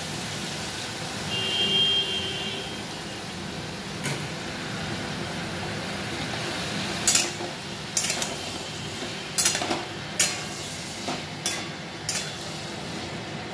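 Onion stalks sizzling steadily in hot oil in an aluminium wok. From about seven seconds in, a metal spatula stirs them, knocking and scraping against the wok several times. A brief high tone sounds about a second and a half in.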